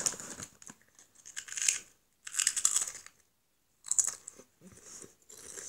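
Boy crunching and chewing crisps, in irregular bursts of crunching with a brief pause about three seconds in.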